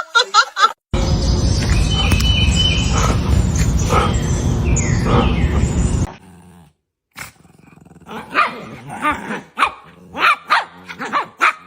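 A dog barking and growling in short yips and barks. A loud, steady rumbling noise fills the first half.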